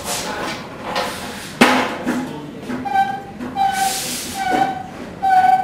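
Hand pallet truck at work under a steel crane base: a few sharp knocks, the loudest about one and a half seconds in, then a short high squeak roughly once a second as the handle is pumped to raise the load.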